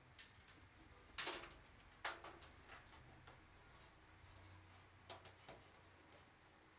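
A few scattered, light clicks and knocks, the strongest about a second in, from hands working on a desktop computer's case and cables.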